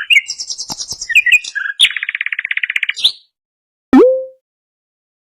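Common nightingale singing: a string of varied high chirps and whistles, then a fast, even trill of about a second. About four seconds in comes one short, loud, sudden sound with a brief rising tone.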